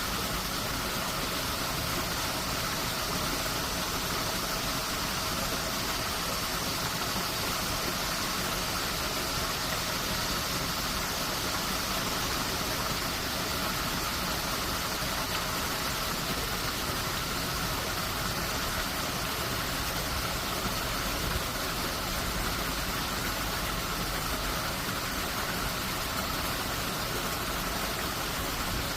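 Steady rush of stream water pouring through the arches of the Hwahongmun sluice gate, an even unbroken noise.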